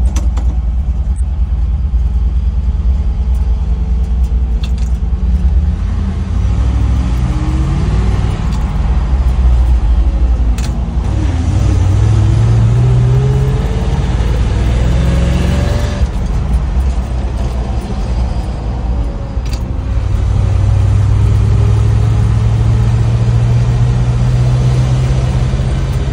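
GMC C7000 boom truck's 366 big-block V8 heard from inside the cab while driving, running smoothly with a low rumble. Its pitch rises several times as the truck speeds up, from about a quarter of the way in until just past halfway. Near the end it settles into a steady drone.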